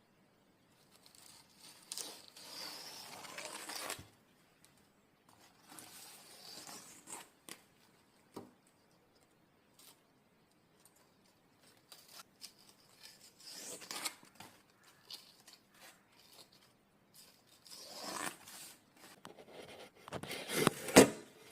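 Fibrous veins and spiny-haired skin being ripped and peeled off leafy plant stalks by hand. There are several tearing pulls with pauses between, the loudest near the end.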